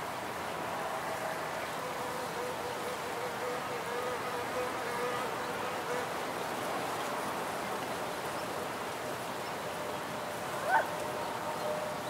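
Wild bees buzzing around their nest, several drones wavering in pitch over a steady background hiss. One brief, louder sound cuts in about eleven seconds in.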